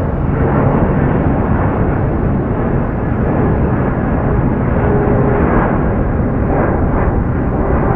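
Airbus A350's Rolls-Royce Trent XWB jet engines at takeoff power: a loud, steady rumble.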